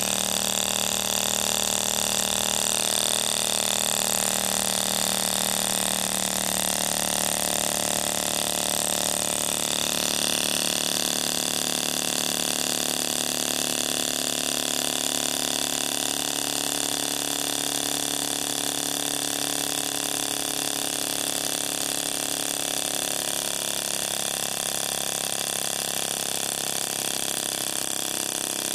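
Brown CO2 model aero engine, a tiny single-cylinder motor driven by compressed carbon dioxide, running continuously on its first test run after restoration, with a steady rapid buzz.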